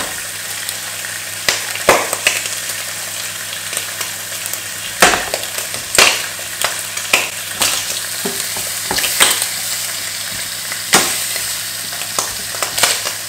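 Sliced button mushrooms in butter and oil, and bacon in a second pan, frying on the cooktop: a steady sizzle with frequent sharp crackles and pops of spitting fat.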